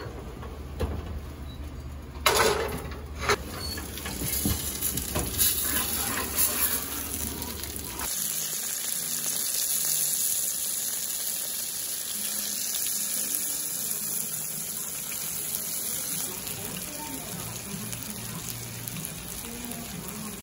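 Cut steak sizzling steadily in hot juices. The sizzle starts about eight seconds in. Before it there is a low kitchen hum, with a couple of clanks about two and three seconds in.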